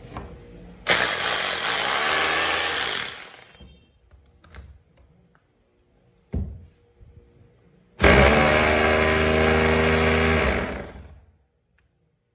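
Corded 220 V electric drill run twice in short bursts: each time the motor starts suddenly, runs at full speed for about two and a half seconds, then coasts down in pitch after the trigger is released. A single sharp knock falls between the two runs.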